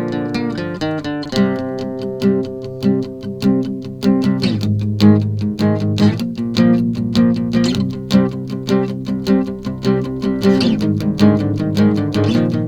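Acoustic guitar music, strummed and plucked in a steady rhythm.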